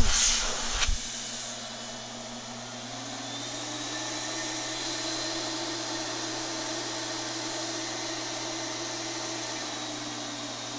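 Apollo Precision 5 five-stage HVLP turbine running steadily. It rises in pitch over a couple of seconds, about two to four seconds in, as the pressure control is turned up from about 4.3 to 6.8 PSI. A click comes about a second in.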